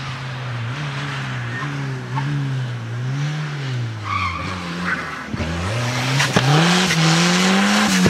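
Volvo 240 rally car's Redblock four-cylinder engine driven hard, the engine note rising and falling through gear changes and throttle lifts. About five seconds in it drops off, then climbs and holds high at full throttle. Sharp exhaust pops and backfires come in over the second half.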